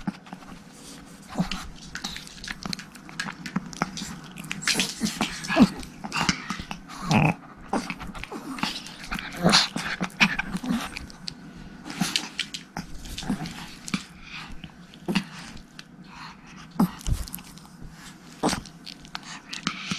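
Pomeranian dogs jostling right at the phone, giving short growls among irregular rustles and clicks.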